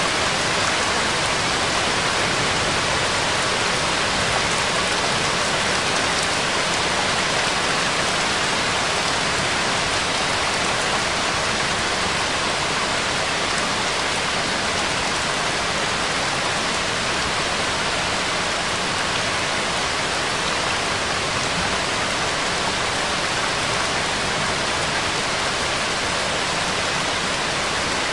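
Steady rain sound: an even, unchanging hiss with no music or beat, used as the bed of a subliminal affirmation track.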